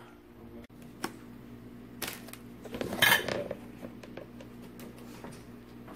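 Dishes and cutlery clinking and clattering in a few separate knocks, the loudest cluster about three seconds in, over a steady low hum.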